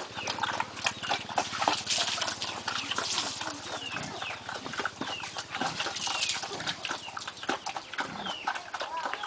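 Livestock at feeding time: pigs jostling and eating, with a run of short clicks and knocks and repeated short, high, falling chirps.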